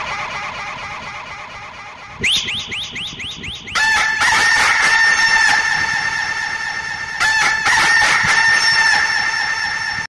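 Horror ringtone of a creepy cackling laugh: a fast run of pulsed, wavering laugh sounds that gets louder about two seconds in and again about four seconds in.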